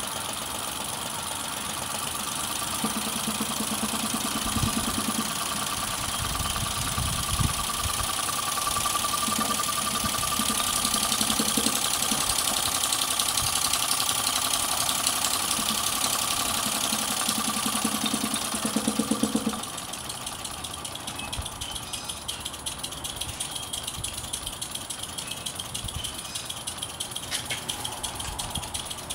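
Small three-cylinder radial model steam engine running on compressed air, with a fast, even clatter of exhaust puffs and a steady whine. It is louder through the middle and turns quieter about twenty seconds in.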